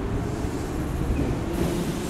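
Yokohama Minatomirai Railway Y500 series electric train standing at the platform, its onboard equipment humming steadily. A hiss comes in near the end.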